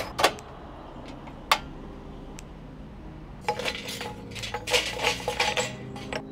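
Binchotan charcoal clinking as it is moved with metal tongs and tipped out of a metal chimney starter into a ceramic konro grill. There are a few separate clinks at first, then a quick run of clinking from about three and a half seconds in as the pieces tumble in.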